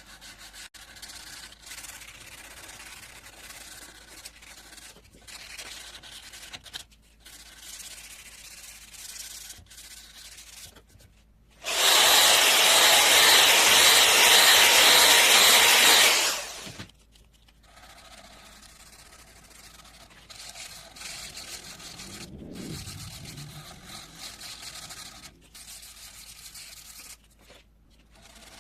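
Rubbing and sanding strokes on the cleaver, irregular and fairly quiet, with short pauses. About twelve seconds in, a loud steady hiss starts abruptly, runs for about four and a half seconds, and cuts off.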